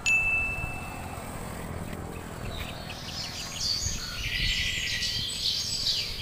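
Birds calling: one high, steady whistled note about a second long at the start, then a busier run of chirps from about halfway, over a low steady rumble.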